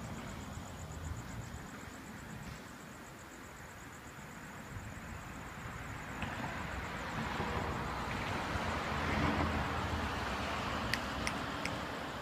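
Night-time street traffic: a car passes, its road noise swelling to a peak about nine seconds in and then easing off, over a low steady rumble. A couple of faint clicks near the end.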